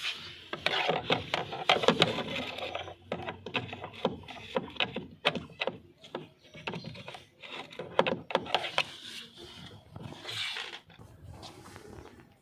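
Hands working on a washing machine's casing to open it: irregular scraping, rubbing and clicking as panels and parts are handled and pried.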